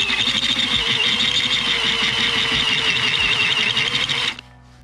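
Power drill running steadily with a held motor whine as a twist bit bores out the metal stud insert of a plastic body control module housing, drilled out like a rivet. The drill stops about four and a half seconds in.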